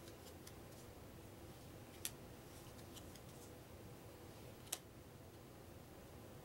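Two short, sharp clicks about two and a half seconds apart, with a few fainter ticks, over quiet room tone: cardstock game cards being laid down one at a time on a wooden table.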